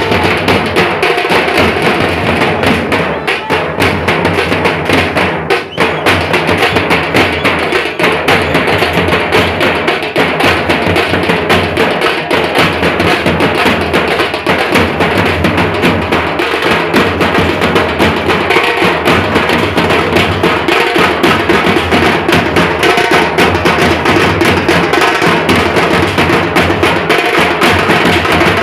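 Nashik dhol band playing: big dhol drums and sharp, cracking tasha drums beaten in a fast, dense, unbroken rhythm, with a brief dip about six seconds in.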